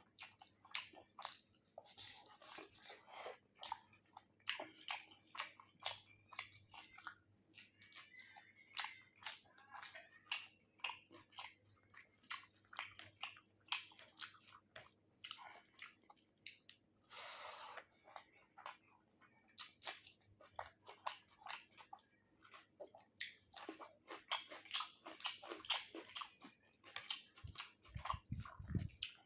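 Close-up mouth sounds of someone eating chicken curry with rice: steady wet chewing, lip smacks and crunching. A little past halfway comes one noisy sound about a second long.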